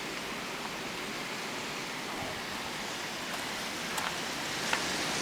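Steady, even hiss of outdoor background noise, with a few faint ticks near the end.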